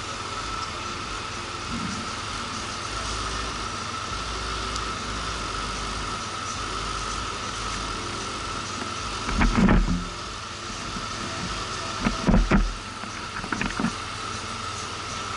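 Motorcycle running along a road, a steady engine and road drone with a constant whine, broken by heavy thumps about ten seconds in and again a couple of seconds later.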